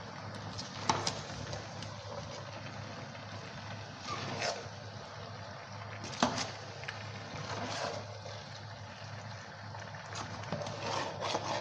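A spoon stirring thick vegetable soup in an aluminium pot, with several sharp knocks and scrapes of the spoon against the pot, the loudest about a second in and about six seconds in, over a steady hiss.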